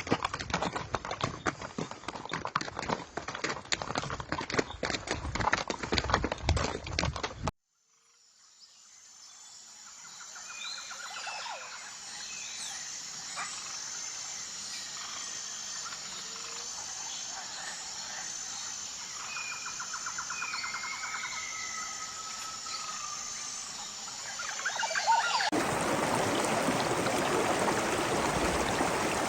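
A dense, rapid clatter of clicks for about seven seconds that cuts off abruptly. Rainforest ambience then fades in: a steady, high, evenly pulsing insect drone with scattered bird calls. Near the end a rushing stream takes over.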